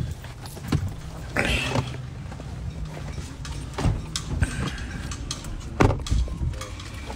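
Low, steady rumble of a vehicle cabin on the move, with several knocks and rustles from a phone being handled and a brief hiss about a second and a half in.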